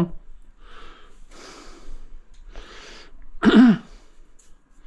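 A man breathing in short, noisy puffs, then a single louder cough-like grunt about three and a half seconds in.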